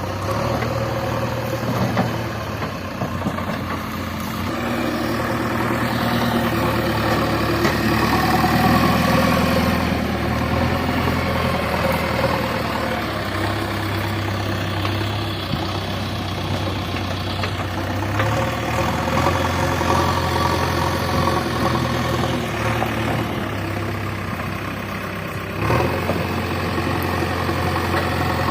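JCB 3DX backhoe loader's diesel engine running steadily, its note stepping up and down a few times as the revs change.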